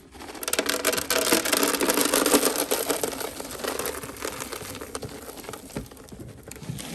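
Dense rustling and crackling with many small clicks, loudest over the first few seconds and then fading.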